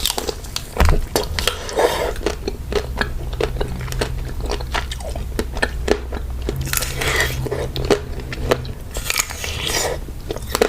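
Close-miked eating: crunchy bites and chewing of a dessert, with many sharp crackles.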